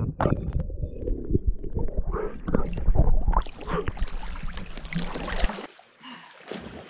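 Water splashing and sloshing close to the microphone, with a heavy low rumble and scattered knocks, as swimmers move through the lake. About five and a half seconds in it drops suddenly to a faint, even hiss.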